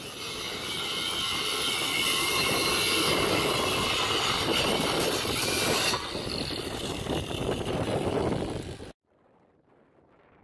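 Electric angle grinder with a thin cut-off disc cutting through a rusty 8-inch-diameter metal pipe, a steady high grinding screech of the disc on the metal, as the pipe is cut lengthwise in half. It stops abruptly about nine seconds in, leaving faint wind noise.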